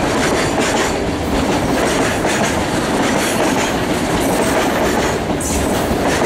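Freight train tank wagons rolling past close by: a steady, loud rumble of steel wheels on the rails, with irregular clicks as the wheels pass over the rail joints.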